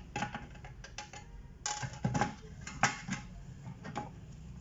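Irregular light clicks and metallic knocks of hand work on a DVR: small parts and screws being handled and fitted into the hard drive and metal case.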